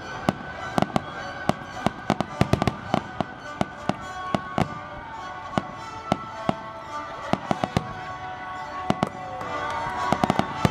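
Fireworks display: a dense, irregular run of sharp bangs and crackles from aerial shells bursting.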